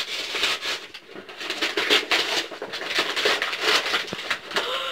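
Parcel wrapping crinkling and tearing as a small package is unwrapped by hand, in quick irregular rustles.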